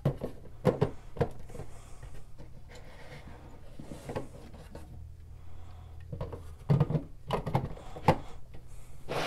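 Plastic LEGO roof section being pressed onto a brick building by hand: sharp clicks and knocks of bricks meeting, a few near the start and a quick run of them about seven to eight seconds in, with soft handling rubs between.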